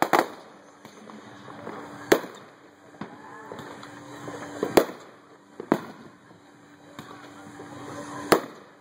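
Aerial fireworks shells bursting: about six sharp bangs at irregular intervals, two in quick succession near the middle, with faint crackling between them.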